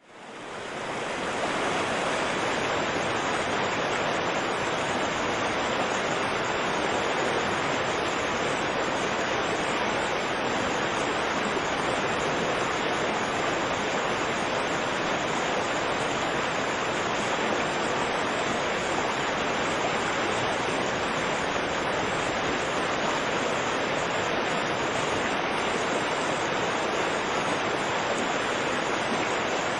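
A raging river rushing steadily, a dense, even roar of water, fading in over the first second or so.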